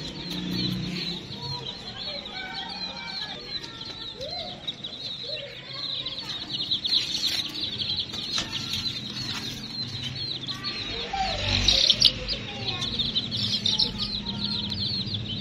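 A flock of young chicks peeping without pause, a dense chorus of short high cheeps. About twelve seconds in comes a brief, louder noise that stands out above the peeping.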